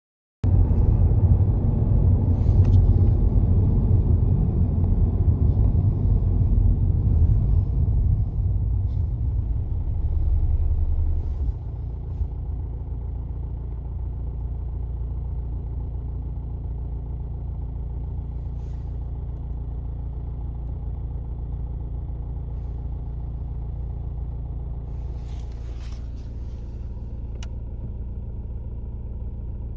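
MINI F54 Clubman diesel engine running, louder at first and then dropping to a quieter, steady idle about eleven seconds in.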